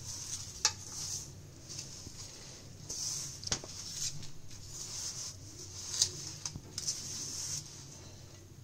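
Hands mixing and kneading crumbly whole-wheat flour dough in a stainless steel bowl: a scratchy rustling and squishing of the dough, with a few sharp clicks against the steel bowl.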